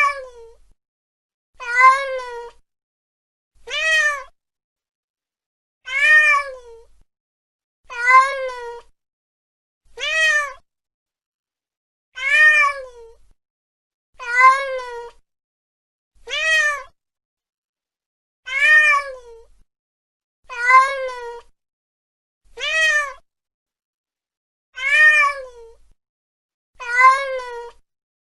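Domestic cat meowing, one drawn-out call about every two seconds, each rising and then falling in pitch. The calls look alike, like the same meow repeated over and over.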